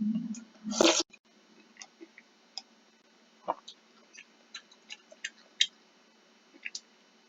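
Light, irregular clicking of a computer mouse, a dozen or so single clicks, with one louder short rustling burst about a second in.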